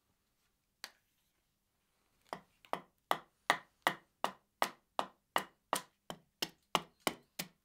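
Carving axe chopping into a stick of wood held upright on a chopping block: one knock about a second in, then, from a little past two seconds, a quick steady series of sharp chops, about three a second.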